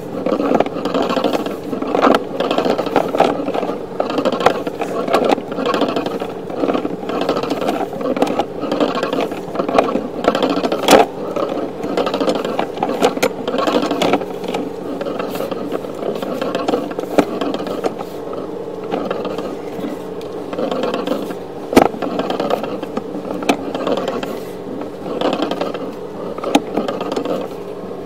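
Sewer inspection camera being pulled back through a sewer pipe, its head and push cable scraping and rattling along the pipe wall, with sharp knocks about eleven seconds in and again about twenty-two seconds in.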